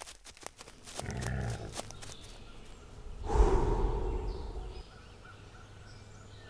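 A few sharp clicks, then about three seconds in a big cat's low, breathy growl lasting about a second and a half, followed by faint forest ambience with a few thin, distant calls.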